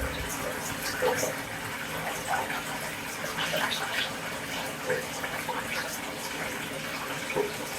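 Water running from a tap into a bathtub: a steady rush of water.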